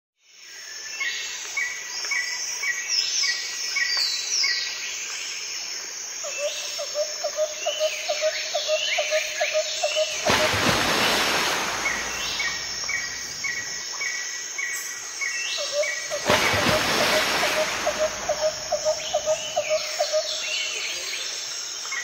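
Wild birds singing and calling: runs of short repeated chirps, descending whistled notes and a low pulsed call repeated several times a second. About ten and again about sixteen seconds in, a brief burst of rushing noise swells over them.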